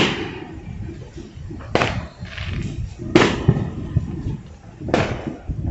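Fireworks going off: four sharp bangs about a second and a half apart, each trailing off into a rumble.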